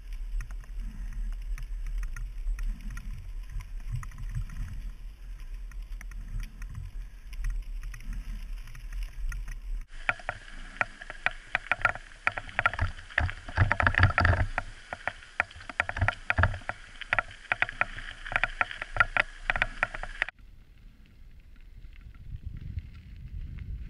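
Mountain bike ride down a dirt trail as heard through helmet-mounted action-camera microphones: a deep rumble with rattling and rapid clattering of the bike over rough ground. The sound changes abruptly about ten seconds in and again near twenty seconds, as playback switches from one camera's microphone to another's.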